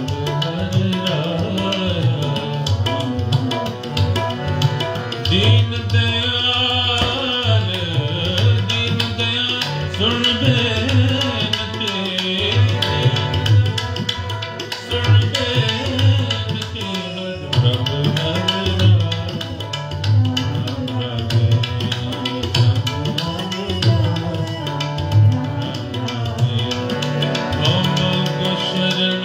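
Sikh kirtan: a woman singing a hymn over two harmoniums and tabla, with the tabla keeping a steady rhythm beneath the sustained harmonium chords.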